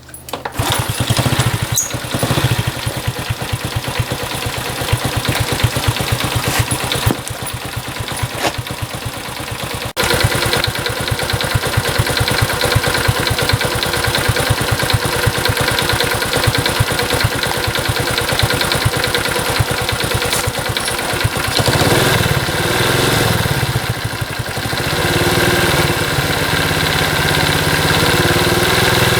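Honda Super Cub 50's small single-cylinder four-stroke engine starts and runs steadily, its firing heard as a fast even patter. The engine has a ticking (kachi-kachi) noise that the owner is tracking down. Its note changes about two-thirds of the way in.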